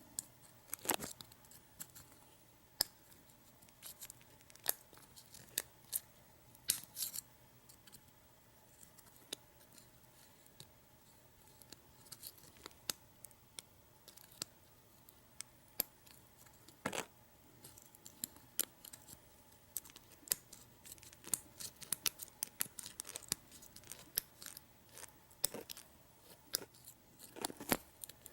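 Lock pick and tension wrench working the pins of a U-Haul disc padlock: faint, irregular small metallic clicks and scrapes, a few louder ticks now and then.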